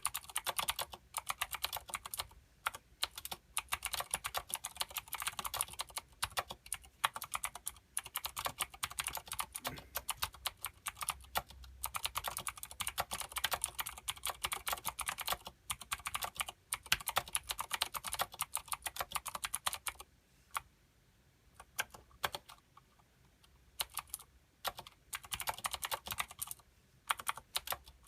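Fast, continuous typing on a Filco Minila mechanical keyboard with clicky Cherry MX Blue switches and thick PBT doubleshot keycaps. Each keystroke makes a sharp click. About two-thirds of the way through, the typing thins to a few scattered keystrokes for several seconds, then picks up again.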